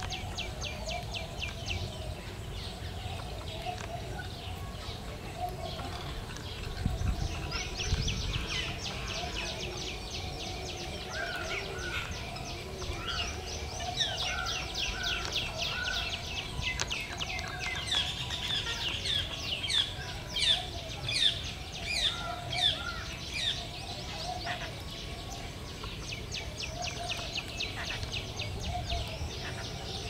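Birds calling and chattering: dense runs of short, high chirps, loudest a little past the middle, with lower clucking notes here and there.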